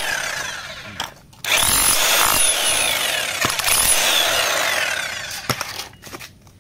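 Bosch GSH 500 Gen 2 electric demolition hammer running in bursts: a short run, a brief pause about a second in, then a longer run that fades out about five and a half seconds in as the trigger is let go.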